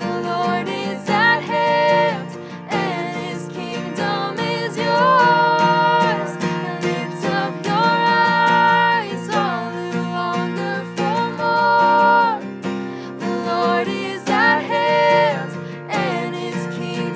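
Acoustic guitar strummed in steady chords under a man and a woman singing a slow worship song, with long held notes.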